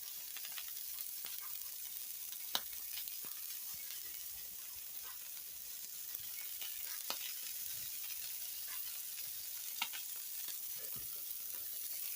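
Half-pound hamburger patties sizzling steadily in a skillet, a high hiss with a few sharp ticks or pops.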